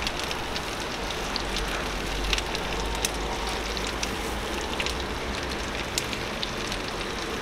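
Marinated chicken wings sizzling in a preheated Lodge cast-iron skillet and on the hot grates of a Keg grill at about 225 degrees: a steady hiss with scattered crackles and pops.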